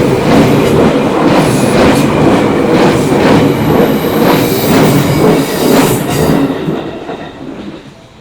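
Seibu Haijima Line electric commuter train passing over a level crossing, its wheels clacking regularly over the rail joints, with a faint high wheel squeal midway. The train sound fades away over the last second or two.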